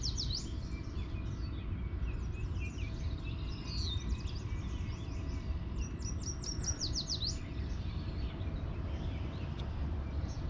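Songbirds singing: runs of quick, high chirps and down-slurred notes, loudest near the start and again about two-thirds of the way through, over steady low background noise.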